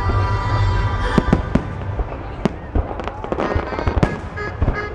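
Aerial fireworks going off in a rapid, irregular series of sharp bangs, with a stretch of crackling in the middle.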